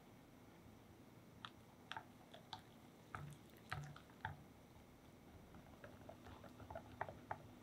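Silicone-coated whisk mixing flour into whipped egg batter in a glass bowl: soft, irregular clicks and wet squishes, starting about a second and a half in and growing busier near the end.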